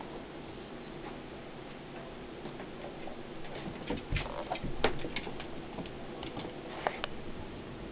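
A cat's paws and claws tapping and scrabbling on a vinyl floor as it pounces on and bats a mouse. There is faint steady background at first; from about the middle comes an uneven run of sharp clicks and taps, the loudest about five seconds in.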